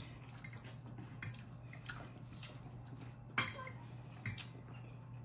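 Chopsticks and forks clicking and scraping against ceramic bowls as noodles are eaten quickly, with a sharper clink about three and a half seconds in.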